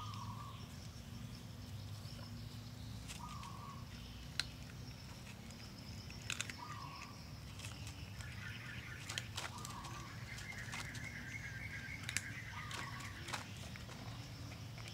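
A cat crunching dry kibble from a foam tray: a handful of sharp crunches scattered through, over a steady low hum. In the background a short call repeats about every three seconds, and a higher chirping runs through the second half.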